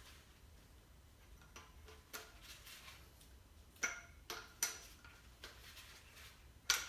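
Light metallic clicks and taps as engine parts and hand tools are handled during a teardown: a handful of separate, sharp ticks, the loudest near the end.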